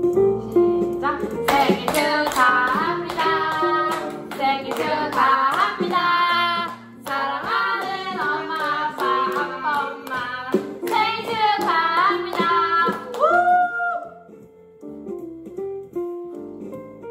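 A group singing a celebration song together over recorded music with guitar, clapping along. The singing ends on a long held note about three-quarters of the way through, and the last few seconds are quieter.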